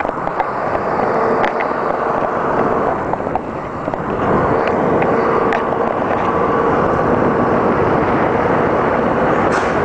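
Wind buffeting the microphone of a camera riding on a moving bicycle, with a steady hum and a few light clicks. The noise grows louder about four seconds in.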